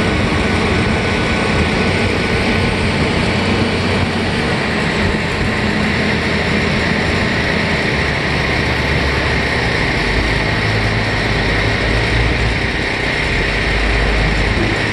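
Ferry boat's engine running steadily, heard from its open deck with a constant rush of wind and water noise; its low rumble grows louder about ten seconds in as the boat nears the landing.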